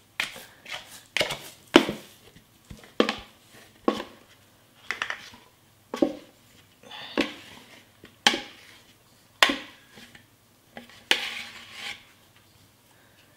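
Dough scraper knocking and scraping inside a mixing bowl held upside down, a series of sharp knocks about once a second, as sticky risen dough is worked loose and drops out.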